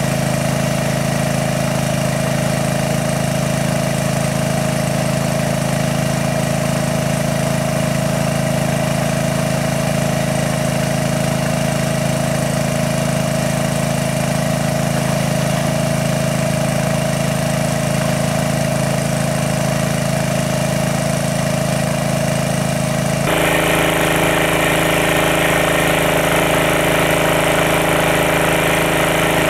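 Small engine driving a water pump, running steadily as it pumps water out of a pond. About three-quarters of the way through, the engine sound changes abruptly to a different mix of tones and gets slightly louder.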